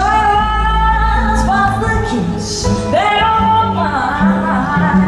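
Live jazz from an outdoor festival stage, amplified over the PA: a high voice holds long notes, sliding up into them near the start and again about three seconds in, over a steady bass line.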